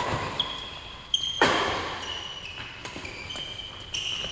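Badminton rackets striking the shuttlecock several times in a doubles rally, with sharp hits ringing briefly in the hall. Short high squeaks run between the hits.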